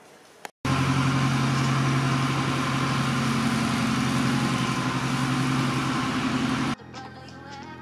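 Light aircraft piston engine and propeller running steadily at low power, loud and even, cutting off suddenly near the end; faint music follows.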